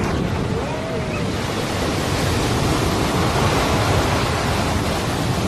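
Heavy storm waves crashing over a seawall and breaking into spray: a continuous loud rush of surf that swells a little about three to four seconds in.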